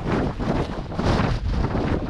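Gale-force wind gusting at around 60 to 70 mph and battering the microphone: loud, uneven wind noise that swells and dips from moment to moment.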